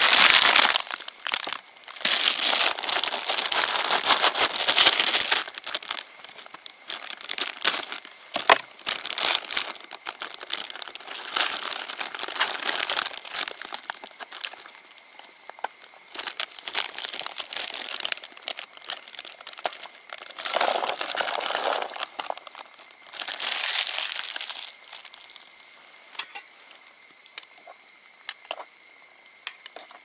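Clear plastic bag of dumplings crinkling as it is handled and opened, in repeated bursts with small clicks and rustles.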